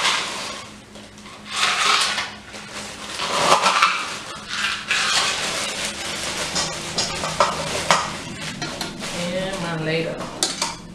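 Ice cubes scooped out of a plastic bag and tipped into a glass punch bowl: clinking and rattling ice with plastic crinkling, two louder surges about 2 and 4 seconds in, then a run of smaller clicks.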